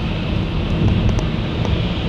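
A car driving along, with the steady low rumble of its tyres and engine.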